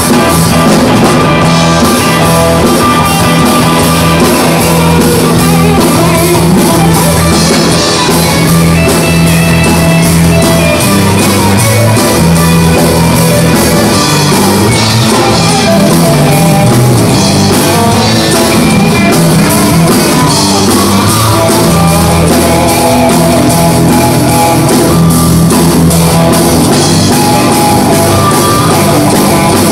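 Rock band playing live: electric guitars, bass guitar and drum kit, loud and steady throughout.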